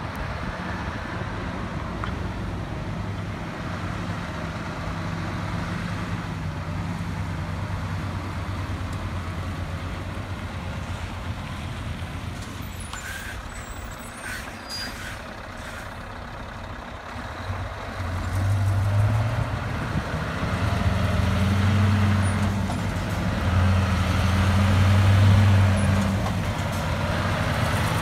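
Scania R500 V8 diesel truck engine running, low and steady at first, then growing louder from about two-thirds of the way in as the truck pulls away and passes close, its deep note rising and falling.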